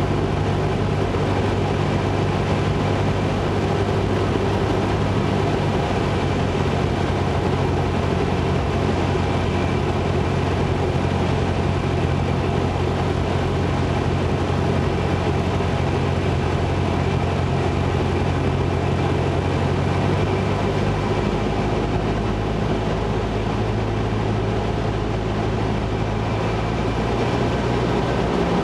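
Cessna 172's piston engine and propeller running steadily, heard inside the cabin; the engine note shifts slightly about two-thirds of the way through.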